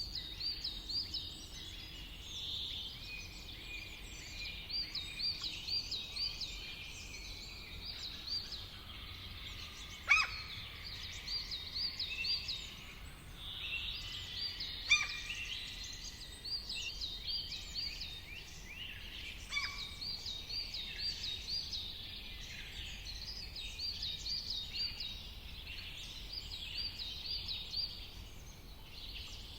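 Many small songbirds chirping and singing together, with quick repeated up-and-down phrases over a faint low background rumble. Two short, louder notes sweeping downward stand out about ten and fifteen seconds in.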